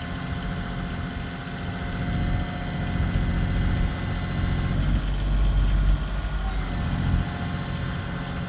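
Bobcat CT2025 compact tractor's diesel engine running steadily, with small rises and falls in level.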